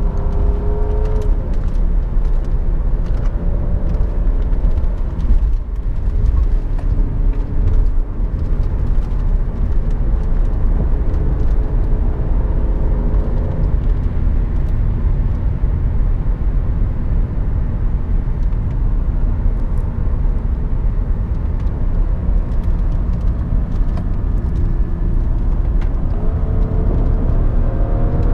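Steady road and tyre rumble inside the cabin of a 2012 BMW 535i (F10) under way, with the turbocharged straight-six engine faintly audible. Near the end the engine note climbs as the car accelerates.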